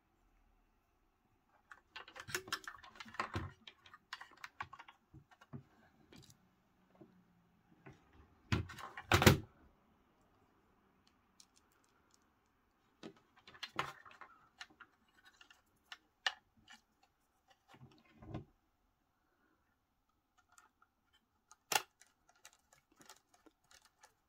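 Scattered small clicks, taps and rattles of a precision screwdriver and its bits being handled, then the screwdriver at work on the small screw that holds the WiFi card on the motherboard. A louder clatter comes about nine seconds in.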